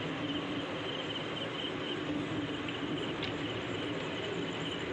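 Crickets chirping in a steady pulsing trill over a continuous low hum and rumble.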